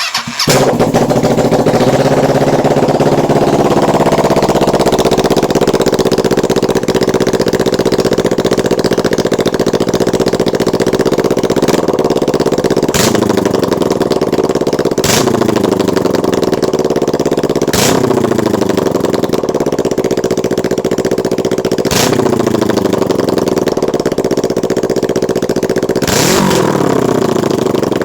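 Kawasaki Ninja 650 parallel-twin engine starting, then idling. From about halfway through it is revved several times, each time with a sharp crack and the revs falling back down. The owner says it misfires and runs on one cylinder when the throttle is let off.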